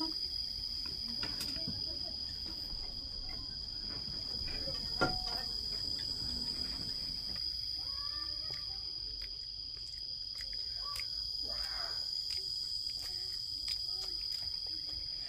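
Crickets trilling steadily and without a break, a high, even insect drone, with a single knock about five seconds in.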